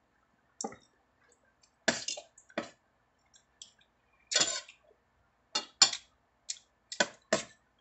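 Steel spoon and fork clinking and scraping against a stainless steel bowl of rice and soup while eating, heard as a scattered series of short sharp clicks. A longer breathy sound comes about four and a half seconds in.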